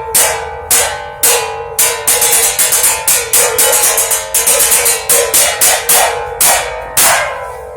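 A two-handed crosscut saw struck again and again as a makeshift bell. Each strike rings on at one steady pitch. The strikes start a little over half a second apart, quicken to about four or five a second in the middle, then slow again near the end.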